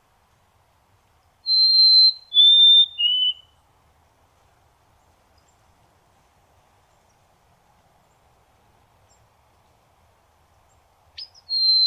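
White-throated sparrow singing: one song of three clear whistled notes, each a step lower than the last, then after a long pause the next song begins near the end with a short sharp note and a high held whistle.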